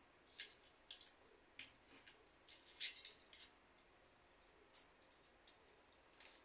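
Faint scattered clicks and ticks of small parts being handled while a smart radiator thermostat is taken apart. About ten come in the first few seconds, then a few fainter ones near the end.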